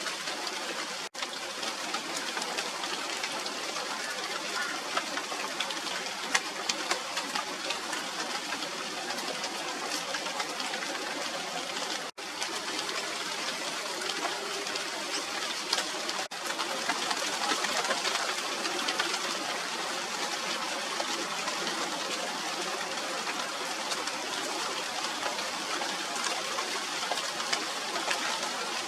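Steady rain falling on the leaves of a china doll tree (Radermachera sinica), a dense hiss of many small drop hits. It breaks off for an instant three times.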